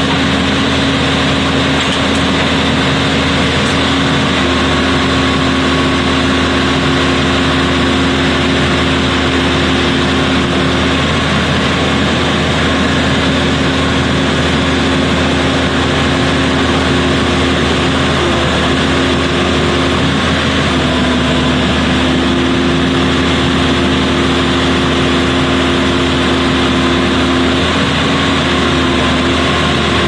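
A ZLCONN 22-ton horizontal directional drilling rig running under load: its diesel power unit and hydraulics make a steady drone. A pair of steady tones in it shift a little in pitch several times as the drilling load changes.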